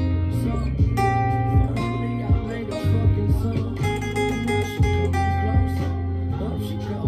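Acoustic guitar being played, chords and bass notes ringing on between repeated sharp string strikes.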